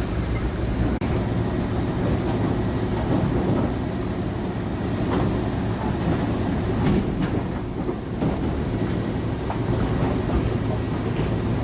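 Sawmill machinery running: a steady low hum and rumble, with a few short knocks in the middle.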